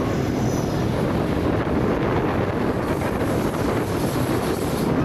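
Steady, unbroken rumble of a vehicle in motion.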